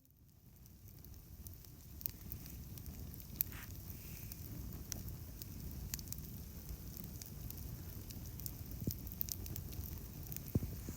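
Campfire burning, with scattered crackles and pops over a low steady rumble.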